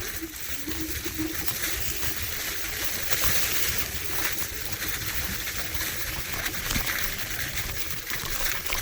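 Rushing noise of a Wolf Warrior X GT electric scooter being ridden: wind buffeting the microphone and tyres on the ground make a steady hiss over an irregular low rumble.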